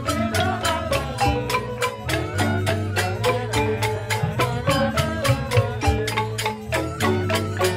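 Balinese joged bumbung gamelan playing: bamboo xylophones struck in fast, even strokes over steady low tones.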